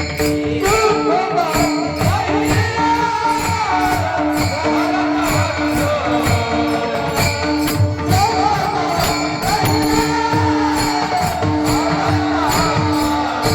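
Kirtan devotional music: a steady rhythmic beat of percussion and jingling cymbals under sustained held tones, with a gliding melodic line that comes and goes above them.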